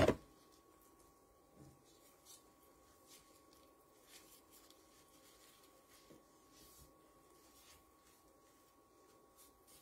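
Faint, scattered soft rustles and rubs of plastic-gloved hands rolling filling into a thin spring roll wrapper on a cutting board, over a faint steady hum.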